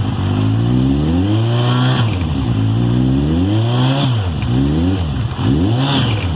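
Kawasaki Z1000 inline-four through an aftermarket sport exhaust with the DB killer (baffle) removed, being revved repeatedly from idle. The pitch climbs and drops back with each throttle blip: two longer revs, then several quicker blips near the end.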